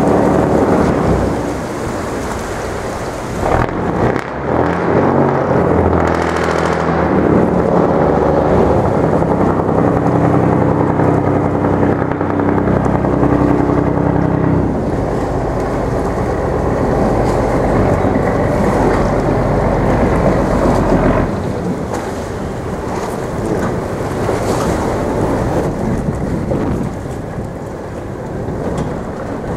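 Tugboat engine running as it works through river ice, its steady hum clearest from about four to fifteen seconds in, under a continuous rumbling wash of churning water and ice floes. The noise drops somewhat after about twenty seconds.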